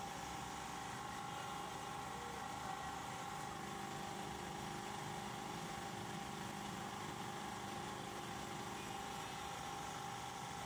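Photocopier running steadily: an even machine hum with a thin steady tone held throughout.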